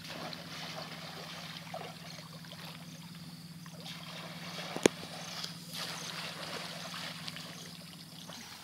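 Muddy shallow water splashing and sloshing as a woven basket is worked through it by hand, over a steady low hum. A single sharp click sounds about halfway through.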